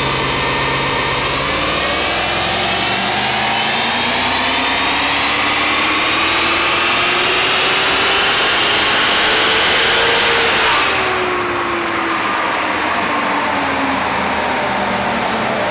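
A 2016 Ford Mustang GT's 5.0-litre V8 running at full throttle on a chassis dyno, the rear tyre driving the rollers. Its pitch climbs steadily for about ten seconds, there is a brief rush of noise, and the engine note then falls away as the power run ends.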